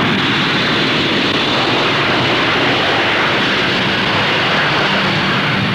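Avro Vulcan B.2's four Bristol Siddeley Olympus jet engines at takeoff power as the bomber climbs steeply away, a steady, even jet noise that holds at one level, heard on an old film soundtrack with little above the mid-highs.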